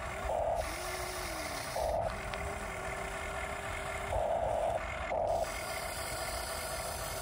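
Small geared electric motors of a radio-controlled Huina construction model whirring in several short bursts as its parts move.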